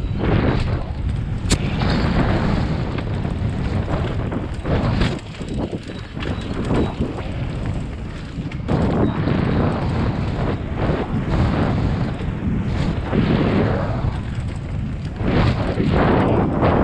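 Wind buffeting the microphone of a camera on a mountain bike riding fast down a dirt singletrack, with frequent knocks and rattles from the bike and tyres over bumps.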